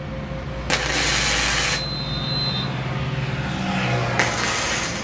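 Gasless (flux-cored) MIG arc from an ESAB HandyArc MIG 200i, hissing in two short welds: about a second starting just under a second in, and a shorter one near the end. Road traffic runs low underneath, with a vehicle droning past in the middle.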